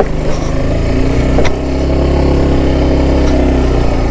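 Motorcycle engine running steadily at low speed close by, with a single short knock about one and a half seconds in, after which the note runs smoother.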